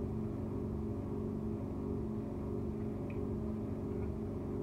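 A steady machine hum, holding one even pitch throughout, with a couple of faint ticks late on.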